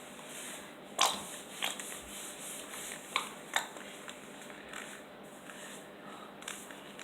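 Small plastic conditioner bottles being handled and squeezed out, with a handful of sharp clicks and taps, the loudest about a second in.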